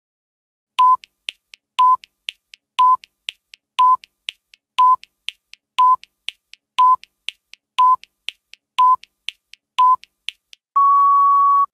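Quiz countdown timer sound effect: a short electronic beep once a second, ten times, with fainter ticks in between, then a longer steady beep about a second long as the count reaches zero.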